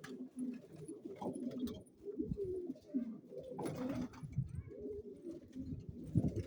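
Pigeons cooing: low, repeated coos overlapping one another, with a brief rustling noise a little past halfway through.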